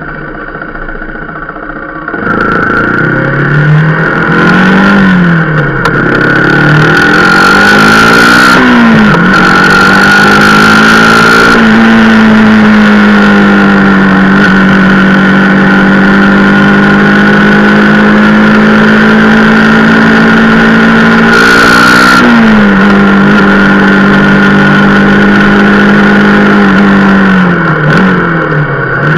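Rieju Marathon Pro supermoto's single-cylinder engine, heard from on the bike: low revs at first, then about two seconds in it pulls away loudly, the revs climbing and dropping twice as it goes up the gears, before settling into a steady cruising note. The revs dip briefly about two-thirds of the way through and again near the end.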